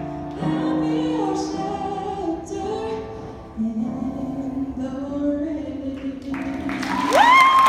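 Solo female voice singing with piano accompaniment, holding long notes over sustained piano chords at the close of the song. About seven seconds in, clapping starts and a loud whistle rises to a high held pitch.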